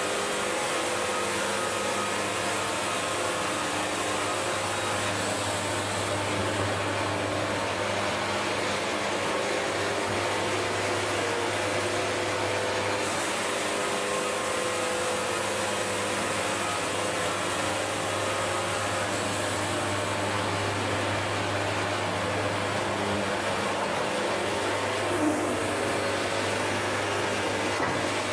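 Portable band sawmill running with a steady, even drone, with one brief small knock near the end.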